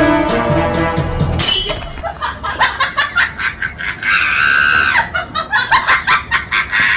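Music that cuts off about a second and a half in, followed by a rapid run of short sharp sounds and a high, drawn-out scream lasting about a second, about four seconds in.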